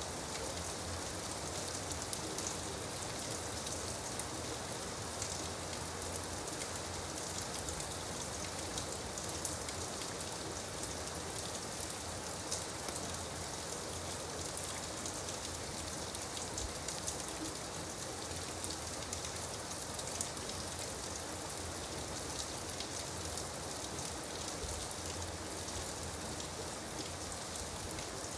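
Steady gentle rain, a dense patter of individual drops that holds an even level throughout.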